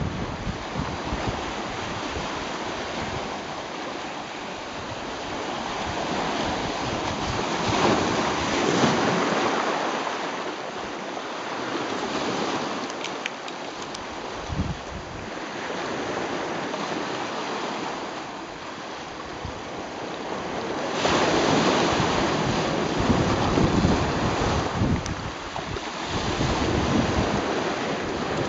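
Sea waves washing in and out over a rocky shoreline, swelling into louder surges about three times, with wind rumbling on the microphone.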